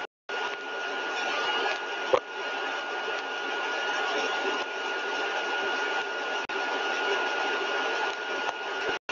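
Axial compressor rig, rotor and stator stage, running steadily at 75% of design speed: an even rush of air with a constant high whine on top. A light click about two seconds in.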